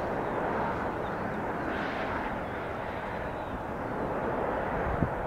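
Jet engines of an Airbus A330-300 airliner at low landing thrust as it flares over the runway: a steady, even roar heard from across the field. A brief thump comes near the end.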